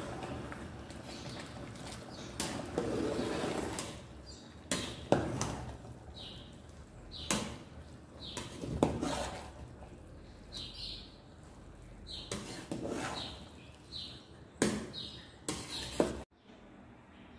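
Cooking utensils knocking and clattering against pots, a dozen or so sharp irregular knocks, with short high chirps between them. The sound cuts off suddenly near the end.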